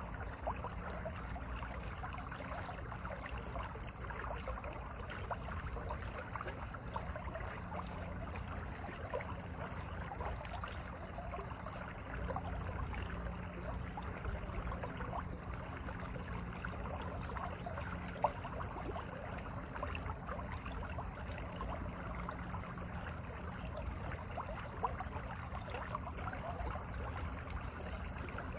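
Mountain valley stream flowing steadily, a continuous rush of water with a dense babble of small splashes.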